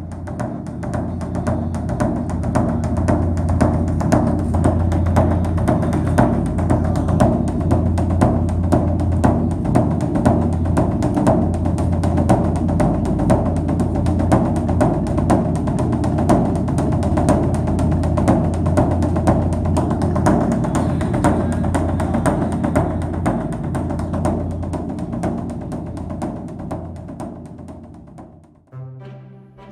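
Background music of fast, even drumming over a low steady drone, fading in at the start and fading out near the end.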